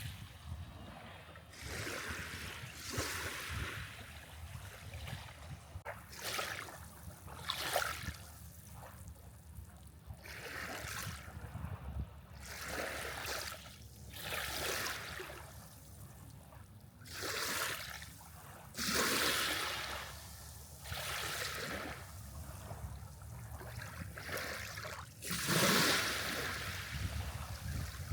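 Small waves lapping and washing on a sandy shore, in irregular rushes every second or two, over a low rumble of wind on the microphone.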